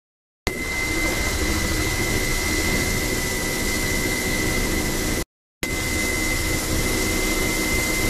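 Helicopter engine and rotor noise heard from inside the cabin: a steady, loud running noise with a constant high whine. It begins about half a second in and drops out briefly a little after five seconds.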